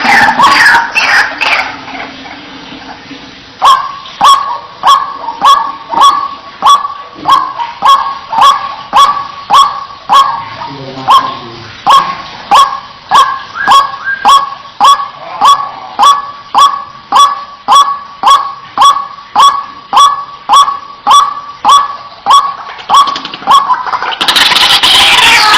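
White-breasted waterhen calling. A dense, overlapping jumble of loud calls at first gives way, about four seconds in, to a steady series of single calls repeated evenly at about one and a half a second, and the jumble of calls returns near the end.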